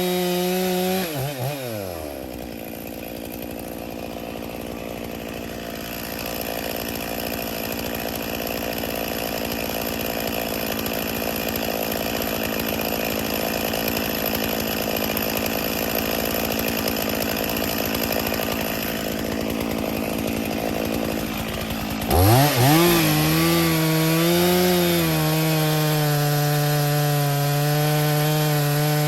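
Two-stroke Stihl chainsaw at full revs that bogs down about a second in as the bar goes into the trunk and cuts steadily for about twenty seconds. Near the end it comes out of the cut and the engine revs back up to a steady high whine.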